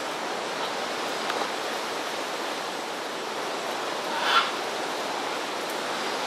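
Scarlet macaw giving one short harsh squawk about four seconds in, over a steady hiss of forest ambience.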